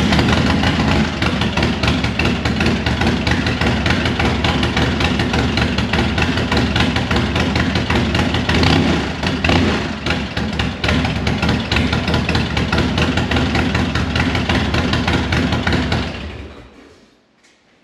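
Harley-Davidson Low Rider S V-twin with a freshly installed 30-30 camshaft, running at idle through its 2-into-2 exhaust. It dies away at about sixteen seconds as the engine is shut off.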